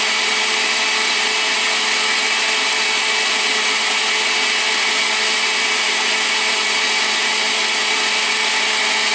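Countertop blender running steadily, puréeing chiles and a tomato with water into green salsa.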